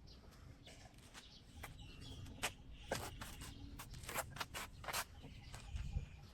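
Birds calling against a low rumbling background, with a handful of sharp knocks or clicks through the middle.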